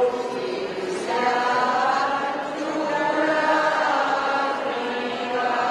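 A congregation singing a hymn together in unison, many voices on one slow melody with long held notes.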